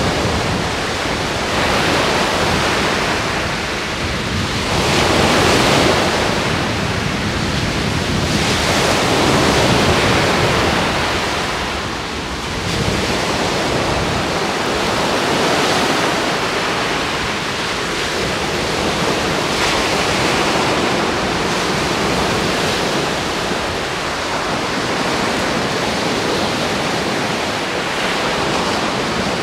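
Small sea waves breaking and washing up a sandy beach: a steady rush of surf that swells and eases every few seconds.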